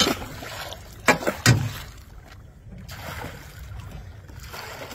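Catfish splashing into lake water as they are tipped out of a netted keep enclosure: one sharp splash right at the start, a quick run of three splashes about a second in, then softer sloshing of water against the net.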